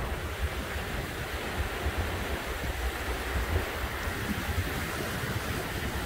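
Small surf washing up onto a sandy beach, a steady hiss of breaking and receding water. Under it runs a low, uneven rumble of wind on the microphone.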